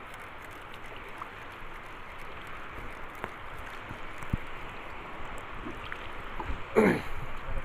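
Steady rush of wind and choppy lake water, with one short, louder sound that slides in pitch about seven seconds in.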